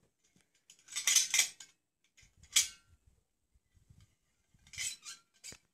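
A push-down spinning top being handled, giving a few short bursts of clinking and clattering. The sharpest knock comes about two and a half seconds in and rings briefly.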